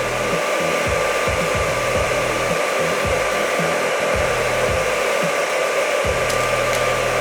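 Hair dryer running steadily on a lower fan setting, blowing hot air into a tin-can popcorn popper, with a whine in its air noise. Kernels knock about inside the can and a couple of sharp pops come about six seconds in as the corn starts to pop.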